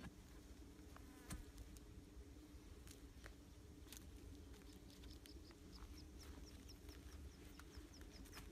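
Faint steady buzzing of flies or other insects, with scattered soft clicks and scrapes of dry soil being dug by hand and iron bar. From about halfway, a faint run of short high chirps repeats about three times a second.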